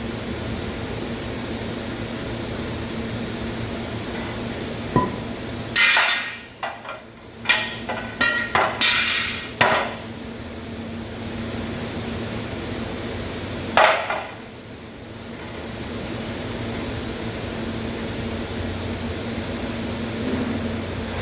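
Hammer blows on a steel truck leaf spring to straighten a bend in it: a quick run of about ten metallic strikes starting about six seconds in, and one more strike near fourteen seconds, over a steady background hum.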